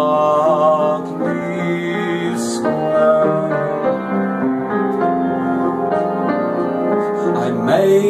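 Music: a man singing a slow ballad to piano accompaniment, singing the word "Berkeley" about two seconds in while the piano plays sustained chords.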